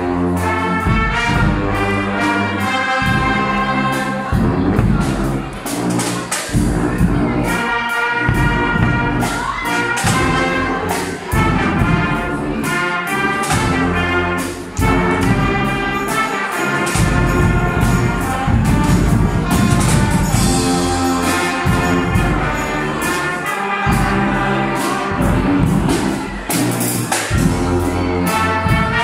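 Guggenmusik carnival band playing live and loud: trumpets, trombones and sousaphone over a steady beat of big bass drums and other drums.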